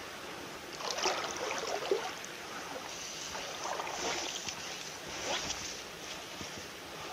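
Fly rod and line swishing through the air in a run of false casts: a whoosh roughly every second, over a steady hiss of moving air and water.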